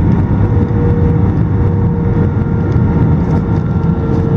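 Airbus A320 cabin noise heard from a passenger seat: a loud, steady low rumble of engines and airflow, with a faint steady whine over it.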